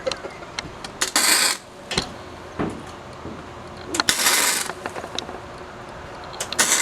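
Three short welding tacks, each a burst of arc crackle about half a second long, with small clicks and knocks of metal work between them.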